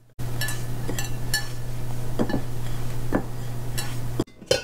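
Spoon clinking and scraping against a bowl while powdered milk and ghee are mixed together, with about seven sharp clinks spread through, over a steady low hum.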